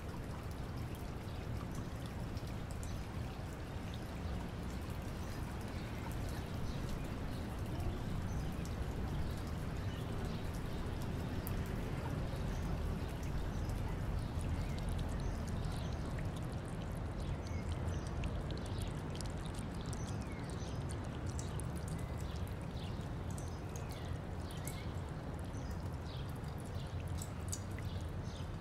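Water trickling and dripping off a roof gutter, a steady running-water sound, with a scatter of short sharp ticks in the second half.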